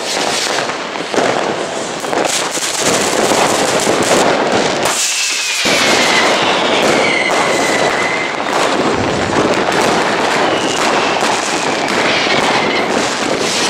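New Year's Eve fireworks and firecrackers going off densely all around, a continuous crackle of bangs and pops. Twice a long whistle slowly falls in pitch over the crackling, once in the middle and once near the end.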